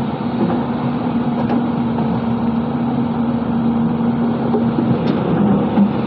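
Hyundai 220-9S crawler excavator's diesel engine running steadily under working load, with a held humming tone, while its bucket digs and churns through gravel in shallow river water.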